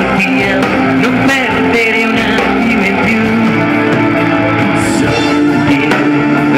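Live pop-rock band playing, with electric guitars over a steady drum beat.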